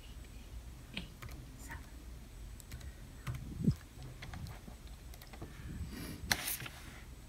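Laptop keys tapped in scattered clicks as a passcode is typed, with a louder thump about halfway through and a brief rustling knock near the end.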